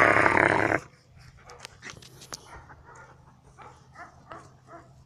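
Belgian Malinois giving a loud, drawn-out, wavering vocalization, a playful growl, that cuts off abruptly less than a second in. After it come only faint scattered clicks and small brief sounds.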